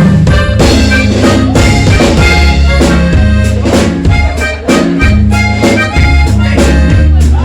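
Loud music with a steady beat and strong bass, led by an accordion-like reed instrument.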